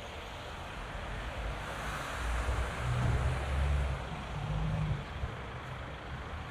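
Street traffic: a motor vehicle drives past, its low engine rumble and tyre hiss swelling from about two seconds in and fading near the end, over a steady background hum of city traffic.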